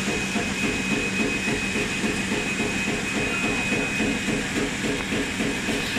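Die-cutting and laminating machine line for double-sided tape running: an even, fast mechanical clatter with a thin steady high whine over it.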